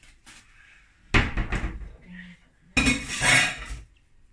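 Dishes and cutlery clattering as they are handled on a kitchen counter, in two short bursts: one about a second in and a longer one near the end.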